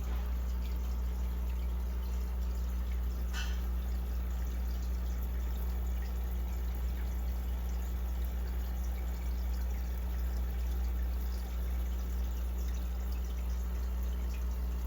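Aquarium water trickling and dripping over a steady low hum, with one brief splash about three seconds in.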